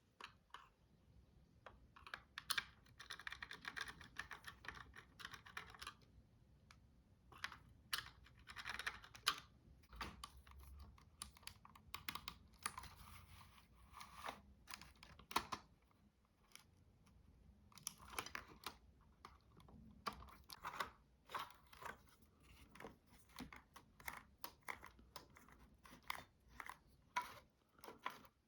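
Light, irregular clicks and scratching of small plastic parts being handled and fitted by hand, as on a Dyson V6 cleaner head being taken apart for a hose replacement.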